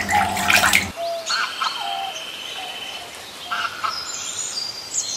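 Small birds chirping, with repeated short falling notes and a thin, high, steady trill lasting a couple of seconds. In the first second there are a few sharp clicks over a low hum that stops abruptly.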